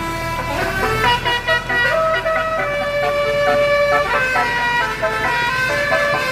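Bus telolet horn, a set of electric-valve air-horn trumpets, playing a tune of held notes that step up and down in pitch, with one longer note about midway. Very loud and shrill.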